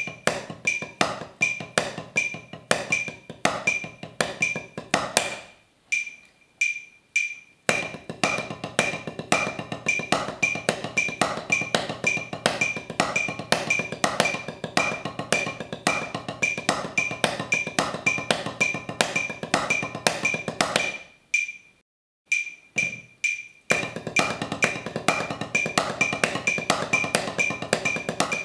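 Wooden drumsticks playing a steady stream of paradiddle strokes on a rubber practice pad over a metronome click. The playing stops twice for about two seconds, about six seconds in and about twenty-one seconds in, leaving the metronome ticking alone. Each time it resumes at a faster tempo, first 110 and then 130 BPM.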